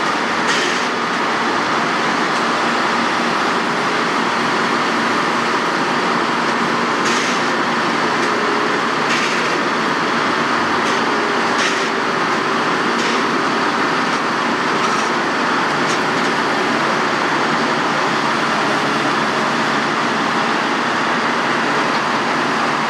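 Heavy machinery running steadily, with a few short sharp knocks scattered through.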